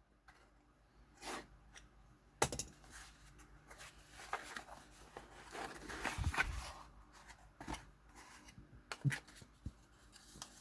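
Faint cutting and scraping as a box cutter slices the packing tape on a cardboard box, with rustling cardboard, a sharp click about two seconds in and a dull knock about six seconds in.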